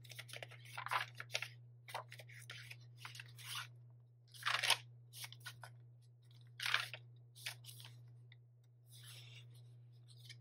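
Paper and cardstock pages of a handmade junk journal being turned by hand: irregular dry rustles and page flaps, a few louder flips among them. A steady low hum runs underneath.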